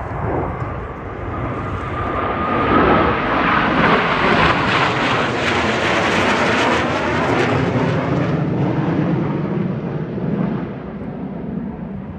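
Airplane flying past: its noise swells over the first few seconds, stays loud through the middle, and fades away, with the pitch sweeping down as it goes by.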